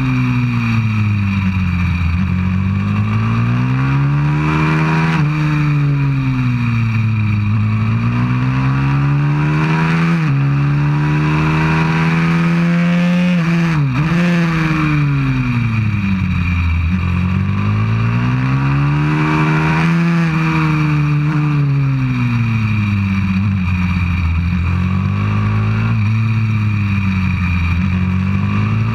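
190cc single-cylinder four-stroke pit bike engine ridden hard on a race track, heard from a camera mounted on the bike: the pitch climbs as it accelerates out of each corner and falls as it slows into the next, every few seconds, with a sudden drop about halfway through.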